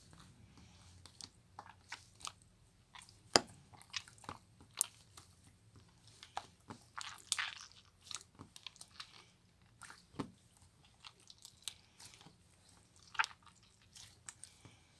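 Slime made from jelly slime and water glue being squeezed and kneaded by hand, giving irregular sticky clicks and pops, with one sharp pop about three seconds in and a brief run of crackling about halfway through.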